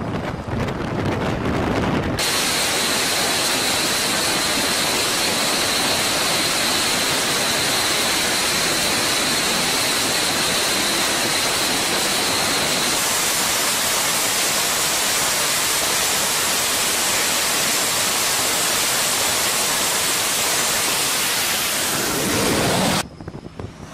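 Jet engines of an F/A-18 Super Hornet running at high power on a carrier deck: a loud, steady rush with a thin high whine that steps up in pitch about halfway through. It begins abruptly about two seconds in and cuts off just before the end.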